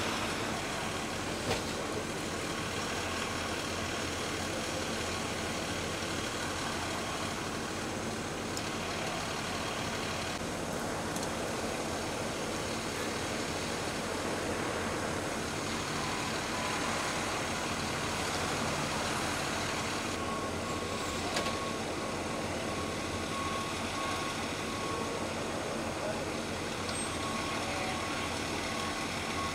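Steady engine noise of idling emergency vehicles, a fire engine and an ambulance, with road noise. A faint high tone comes and goes from about two-thirds of the way in.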